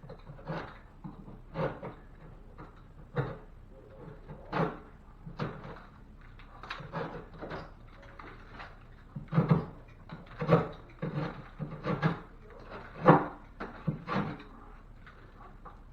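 Irregular knocks and thumps, one or two a second, of drywall and wood being handled and fitted into a ceiling opening; the loudest come in the second half.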